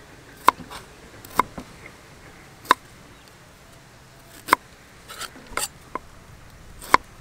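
Cleaver chopping a ginger root on a thick wooden chopping board: about seven sharp knocks of the blade striking the board, irregularly spaced, with quieter scraping and rustling between them.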